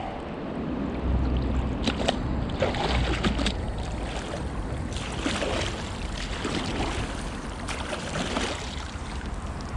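Wind rumbling on the microphone, with scattered short knocks and scrapes of metal finds being handled on the magnet.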